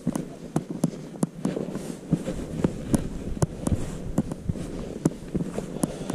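A hiker's footsteps climbing over rock, with irregular clicks and knocks as boots land and scuff.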